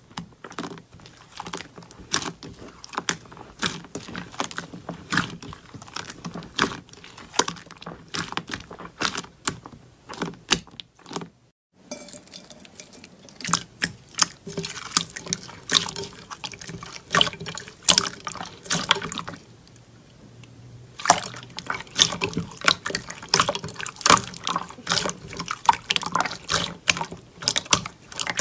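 Slime being squished and worked by hand: a dense run of wet clicks and pops, cutting out briefly about twelve seconds in and easing off for a moment around twenty seconds.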